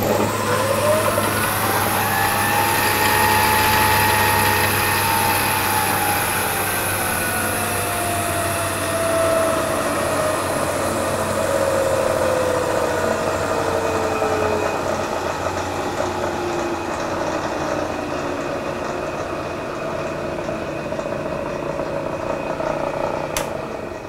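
Variable-speed Bridgeport milling machine head running in reverse. Its motor and drive whine rises in pitch as it spins up, then falls slowly and smoothly over about fifteen seconds as the spindle speed is dialed down, over a steady low hum.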